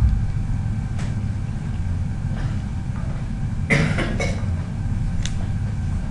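Steady low background rumble, with a brief cluster of two or three sharp noisy sounds about four seconds in and a single short one near the end.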